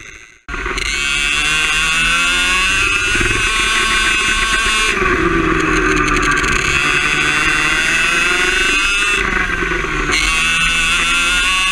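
Two-stroke kart engine at full throttle, a high buzzing whine climbing steadily in pitch, then dropping sharply as the kart slows for corners about five and nine seconds in before climbing again. A brief silence at the very start.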